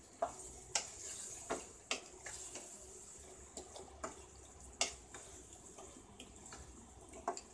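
Wooden spatula stirring raw chicken pieces into a thick tomato masala in a pan, with a soft wet sound and a few irregular sharp knocks of the spatula against the pan.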